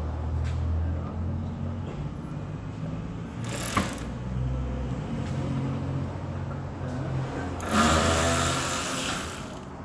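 Power tool, likely a cordless driver, run in two bursts over a steady low rumble: a short one about three and a half seconds in and a longer one of about two seconds near the end, as undertray screws are taken out.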